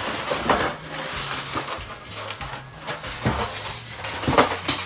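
Packaging rustling with scattered light knocks and clinks as the microwave's glass turntable plate is lifted out of its box.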